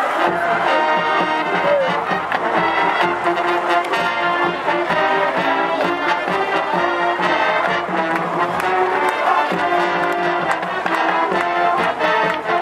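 A marching band plays: brass (trombones and trumpets) holds chords over a steady drum beat.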